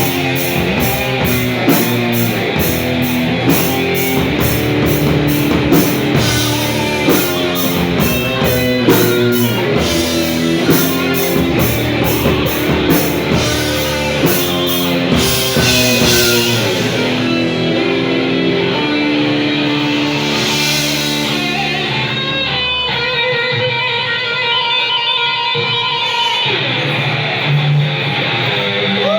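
Rock band playing an instrumental passage: electric guitar over bass and drums with steady cymbal strokes. About halfway through the drums drop out, and the guitar carries on alone with ringing, held notes.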